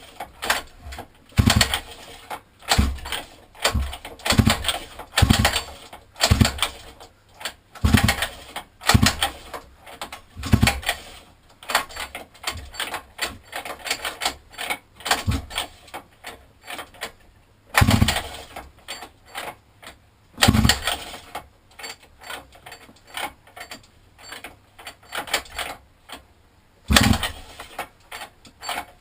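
Recoil pull-starter on a 50cc mini quad's two-stroke engine being yanked again and again, each pull turning the engine over briefly without it firing. The pulls come in quick runs of about one a second with longer pauses between. The engine won't start despite spark, fuel and a new carburettor, for a reason the owner can't find.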